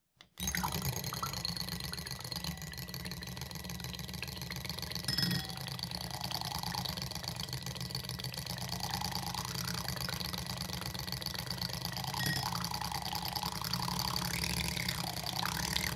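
Cosy cordless mini hand mixer switching on about half a second in and running steadily, its small electric motor humming as the wire whisk head spins through egg whites in a glass bowl.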